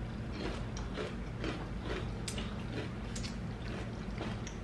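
Eating sounds while chicken wings are eaten: scattered small clicks and smacks of chewing and handling food, over a faint steady low hum.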